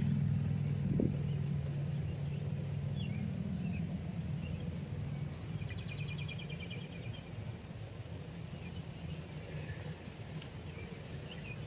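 Outdoor ambience: a low engine hum slowly fades away while birds give scattered short chirps and one brief rapid trill about six seconds in.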